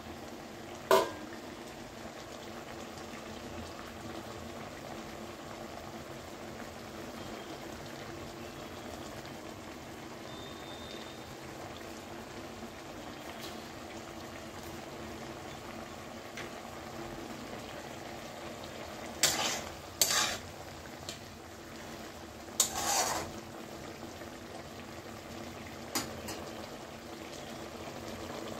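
Thin vegetable curry simmering in an open pan: a steady bubbling hiss. A few sharp knocks cut through it, one about a second in and a small cluster about two-thirds of the way through.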